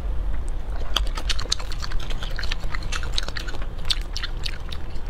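Cooked shrimp shell crackling and snapping as it is peeled off by hand: a run of sharp, crisp clicks starting about a second in, over a low steady rumble.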